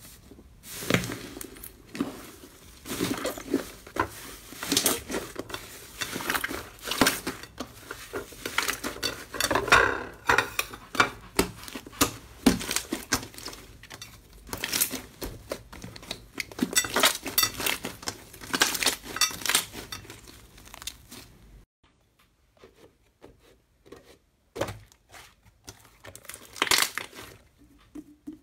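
Hands pressing a thin clear plastic sheet over puffed-up slime, which crinkles and crackles. About halfway, slime is squeezed and kneaded by hand with dense crackling pops. Near the end, softer, scattered squishes and clicks.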